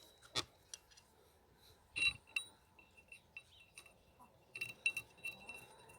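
Light metallic clinks and ticks of small bolts and metal parts while the bolts are screwed into the threaded holes of a submersible pump's impeller. There is a single tap just after the start, a cluster about two seconds in, and several more quick clinks between four and a half and five seconds.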